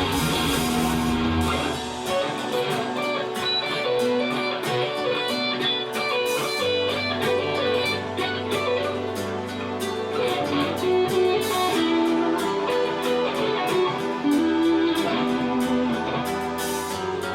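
Electric guitar improvising a lead line with bent notes over a backing track of bass and drums.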